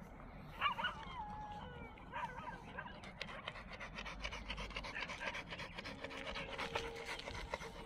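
A dog panting quickly and evenly, with a brief high whine about a second in.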